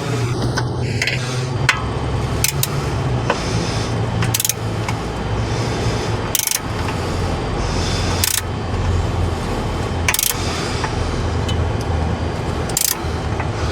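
Sharp metallic clicks and taps from hand tools working on sway bar link hardware, one every couple of seconds, over a steady low rumble.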